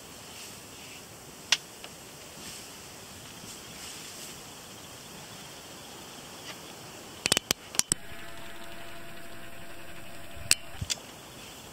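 African elephants walking through grass and bush with their footsteps unheard. Over a faint steady background come sharp snaps of twigs and branches breaking: one after about a second and a half, a quick run of several a little past the middle, and the loudest crack near the end.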